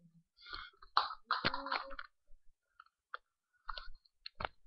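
Handling noise: scattered knocks, clicks and rustling as a webcam is moved about, with a short throaty vocal sound about a second and a half in.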